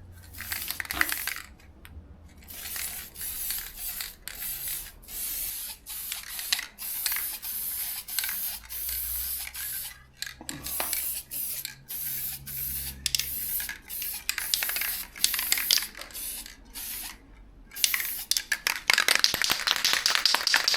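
Aerosol spray-paint can of satin black acrylic lacquer spraying in many short bursts. Near the end the can is shaken, its mixing ball rattling rapidly.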